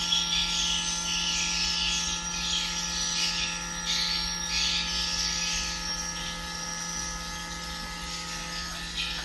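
Swiftlet-attraction calls played through a swiftlet farm's amplifiers and speakers: high chirping twitters that come and go in bursts, heard over a steady hum from a fan the owner finds too noisy. Near the end the hum tones shift, as the amplifier knobs are turned.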